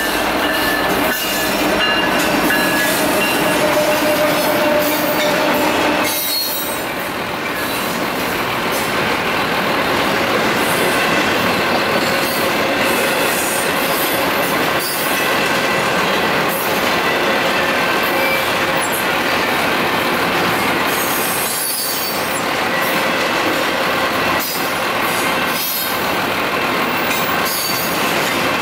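Union Pacific double-stack intermodal freight train rolling past at close range: a steady, loud rumble and rattle of railcars, with high-pitched wheel squeal running through it.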